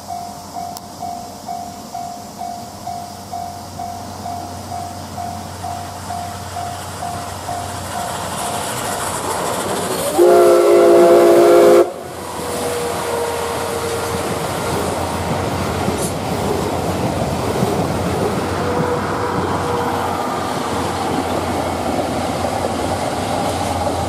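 A level-crossing bell rings about twice a second as the train approaches. About ten seconds in, the C61 steam locomotive sounds its steam whistle, several tones at once, for about a second and a half; this is the loudest sound. The locomotive, its tender and the 12-series coaches then roll past with wheels clacking over the rails, followed by the EF65 electric locomotive at the rear.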